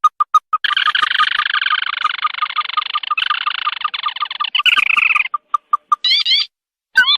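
Crake calls used as a bird-trapping lure. A fast run of evenly spaced piping notes, about six a second, gives way about half a second in to a long, dense trill lasting some four seconds. After the trill, more single notes follow, then short upward-slurred notes near the end.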